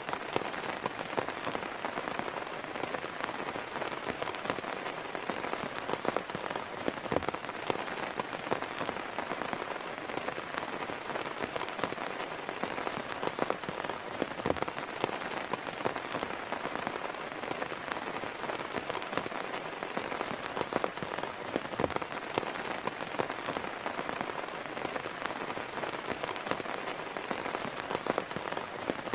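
Heavy rain falling steadily, with many separate drop hits ticking on a nearby surface.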